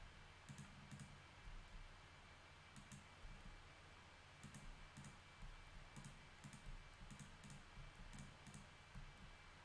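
Faint, scattered clicks from a computer mouse and keyboard, about a dozen spread irregularly over a few seconds, above a low steady hum.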